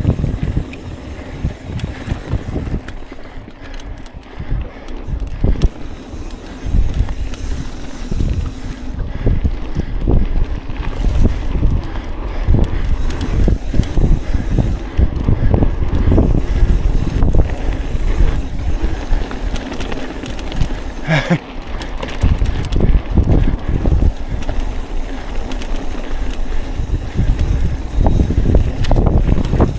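Mountain bike riding over a rocky trail: wind buffeting the microphone over the bike's irregular clatter and rattle, with a brief squeak about two-thirds of the way through.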